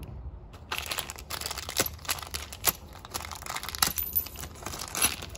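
Packaging being crinkled and opened by hand to take out a refrigerant line piercing valve: irregular crackles and rustles beginning under a second in.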